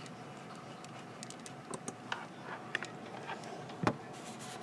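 Scattered light clicks and taps of a computer keyboard being worked, with a duller knock just before the four-second mark.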